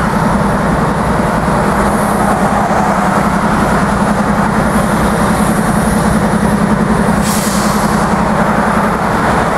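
Several diesel-electric freight locomotives idling with a steady low hum, with cars passing on a highway. A brief hiss sounds about seven seconds in.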